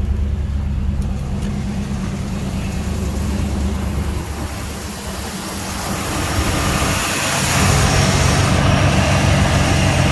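Engine running at a fast idle of about 1100 rpm with the distributor timing fully advanced. It is a steady hum that dips briefly about halfway, then runs louder with more hiss.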